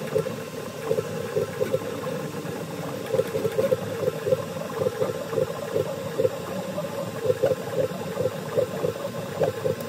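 Original Prusa Mini 3D printer running a print, its stepper motors buzzing in short stop-start bursts, a few a second, as the print head traces an open lattice pattern, over a steady hiss.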